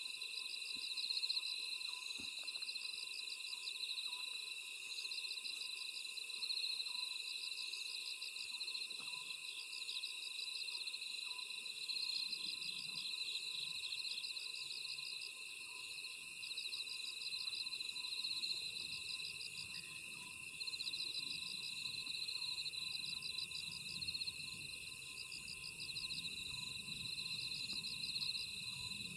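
Night chorus of crickets and other grass insects: steady shrill trilling, with pulsed chirps repeating about every two seconds. Through it an Oriental scops owl calls faintly, a low note repeated over and over.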